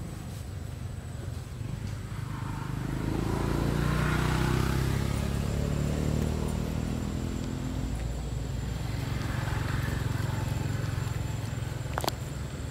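A motor vehicle's engine passing by, swelling to its loudest about four to five seconds in and then fading, with a fainter second swell around ten seconds. A single sharp click comes near the end.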